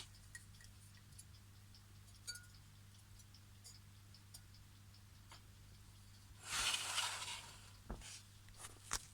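Small electric fan running with a faint steady low hum and light ticking. A brief rustle about six and a half seconds in, and a couple of sharp clicks near the end.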